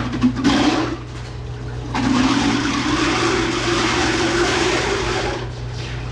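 Water rushing and gurgling down a drain in a loud surge, starting about two seconds in after a brief splash near the start, over a steady low hum.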